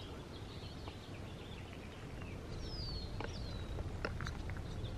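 Outdoor ambience on a brushy trail: birds chirping, with two falling whistled notes about three seconds in, over a steady low rumble and a few soft clicks.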